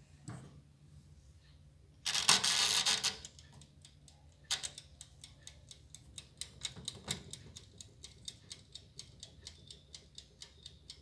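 Small electric oven's timer ticking steadily, about three to four ticks a second, while the oven bakes. About two seconds in there is a loud rattling burst lasting about a second, followed by a knock before the ticking starts.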